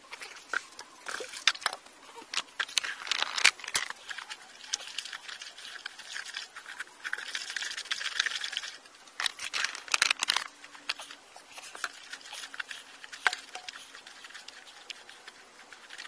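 Irregular knocks, clicks and scraping from hands working with wet mortar and a rubber builder's bucket, with stretches of gritty scraping a few seconds in and again around the middle.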